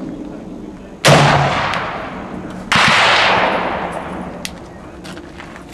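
Two loud gunshots about a second and a half apart, each sudden with a long fading tail. One of them is the shot of a .577 Snider-Enfield Mk III short rifle fired from a bench rest.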